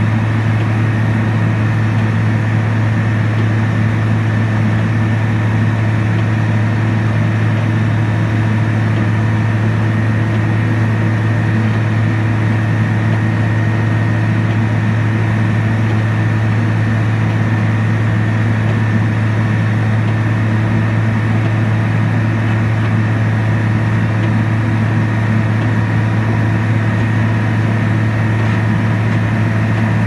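Vögele Super 1900-1 asphalt paver's diesel engine running steadily, a loud even drone with a strong low hum that holds unchanged.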